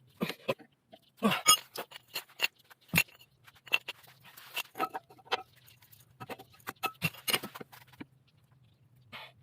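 Irregular metallic clinks and knocks of hand tools and brake caliper parts being handled during a brake pad change, over a faint steady low hum.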